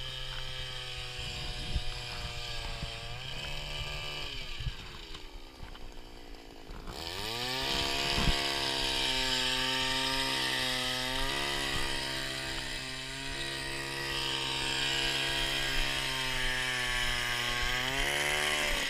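Gas-powered ice auger's small engine running as it drills a hole through lake ice. It revs up about three seconds in and falls away, then climbs again about seven seconds in and holds a steady speed, revs once more and cuts off at the end.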